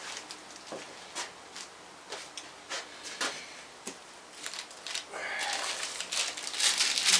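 Foam packing peanuts rustling and squeaking as a hand digs through them in a cardboard box, building up about five seconds in, after a few scattered light clicks and knocks.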